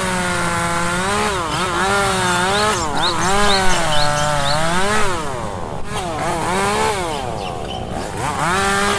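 STIHL chainsaw cutting into a tree trunk under load. Its engine note sags and picks up again several times as the chain bites into the wood.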